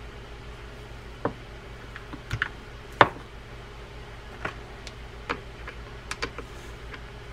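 Scattered light clicks and knocks of small metal fishing-reel parts being handled and set down on a wooden bench, the loudest about three seconds in, over a steady low hum.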